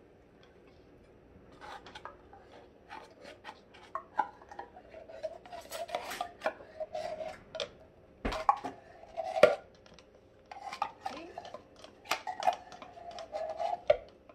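A metal spoon scraping and clinking against the inside of an opened can of sweetened condensed milk, working out the last of the thick milk. The scrapes come in quick runs, with a few louder knocks in between.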